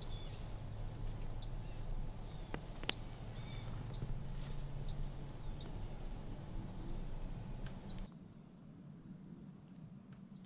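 Insect chorus: a steady high-pitched trilling drone with a few faint clicks. It cuts off suddenly about eight seconds in.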